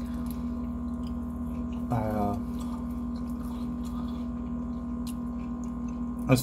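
A steady electrical hum made of several steady tones, with a brief murmured voice sound about two seconds in. Faint crackles come from fried chicken being pulled apart by hand.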